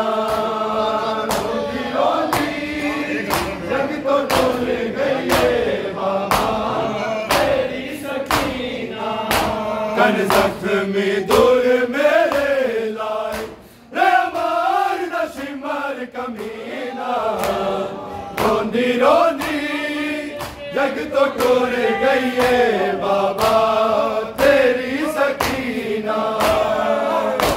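A crowd of men chanting a noha, a Shia lament, in unison, with sharp rhythmic slaps of hands beating on chests (matam) keeping time. The chant drops out for a moment about halfway, then resumes.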